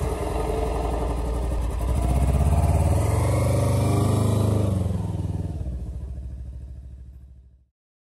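Kawasaki Versys-X 300's parallel-twin engine running, rising in pitch as the motorcycle pulls away, then fading as it rides off. The sound cuts off abruptly near the end.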